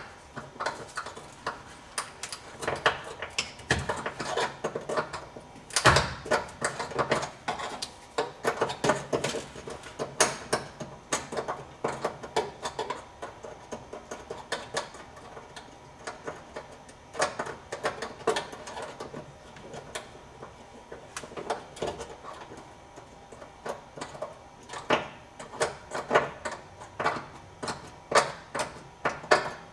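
Hand tools clicking and tapping on a rusted steel bolt, a long run of quick, irregular metallic clicks with a few louder knocks.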